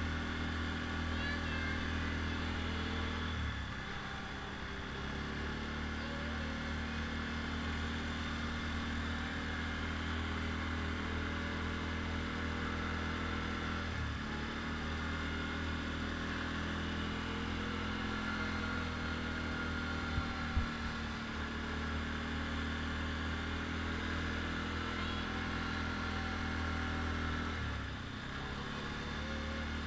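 ATV engine running steadily at cruising speed, heard from the quad the camera is mounted on. Its note dips briefly three times.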